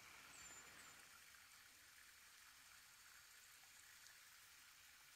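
Near silence: faint steady hiss of forest air, with two faint high chirps under a second in.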